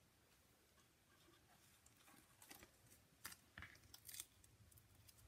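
Mostly near silence, with a few faint, short rustles and clicks from a clear plastic sheet and paper being handled on a craft mat, clustered between about two and four seconds in.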